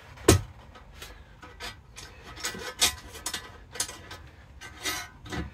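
Metal rod being worked into the sheet-metal frame of a spinner target, scraping and rubbing through the end tabs and the hanging spinner paddles, with scattered clicks and knocks. One sharp knock comes just after the start.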